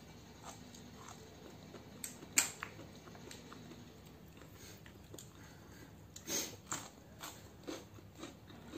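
Quiet eating at a table: chewing, with scattered light clicks and taps of a fork against a bowl. The sharpest click comes about two and a half seconds in, and a few more come close together near six to seven seconds in.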